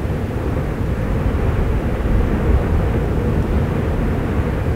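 Steady low rumble of the erupting Fagradalsfjall volcano, swelling slightly midway, with no distinct bangs.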